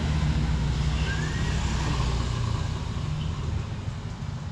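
A motor vehicle engine running steadily with a low, even hum that eases slightly near the end.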